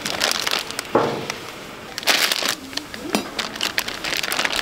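Irregular crinkling, scraping and clicking from food being handled and cooked at a hotteok stall, with a louder burst about two seconds in.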